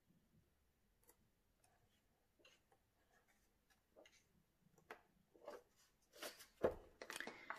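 Pages of a paperback colouring book being turned by hand: faint soft page flips at first, growing into louder paper rustling near the end, with one dull thump.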